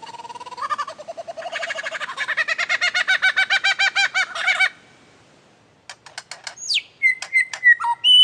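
Bird-like animal calls. First comes a rapid run of pulsed, pitched calls that speeds up over about four seconds. After a pause come several sharp clicks and short falling whistles near the end.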